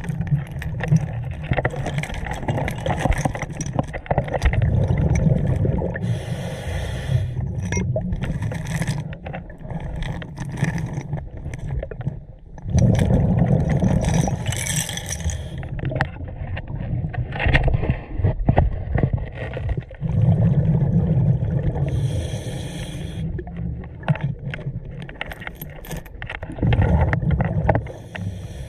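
Scuba regulator breathing heard underwater: a hiss with each inhale, about every eight seconds, and rumbling bursts of exhaled bubbles, with scattered knocks and clicks.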